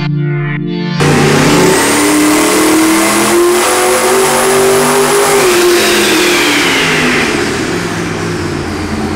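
Twin-turbo 632 cubic-inch big-block Chevy V8 making a full-load sweep pull on an engine dyno. It comes in loud about a second in, and its note rises with a thin high whine above it. Around six seconds in the pull ends and the revs fall away.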